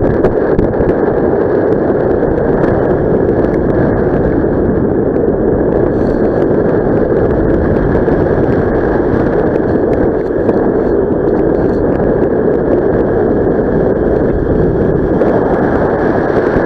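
Loud, steady rush of wind buffeting the microphone from the airflow of paraglider flight.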